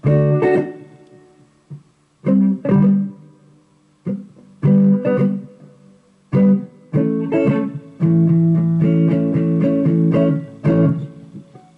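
Amplified solid-body electric guitar playing a riff: struck chords and notes with short gaps, then a run of notes held and let ring over the last few seconds.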